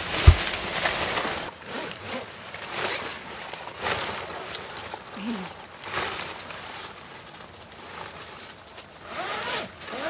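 Nylon tent fabric of a car-docking connector rustling and scraping as it is unrolled and fitted to the tent, with zipper-like sounds, over a steady high drone of summer insects. A single thump just after the start is the loudest sound.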